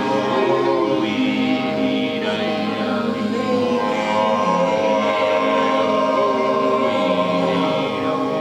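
Several voices singing together in long held, wordless tones, layered into a sustained chord with some pitches gliding.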